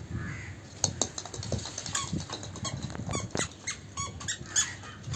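Squeaky toddler shoes squeaking in quick, irregular chirps as a small child walks across a tiled rooftop.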